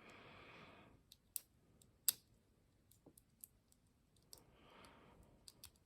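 Faint, irregular metal clicks and ticks of a lock pick and tension wrench working in a padlock's keyway, the pick being worked in beside the tensioner. Two soft breathy swells, one at the start and one about four seconds in.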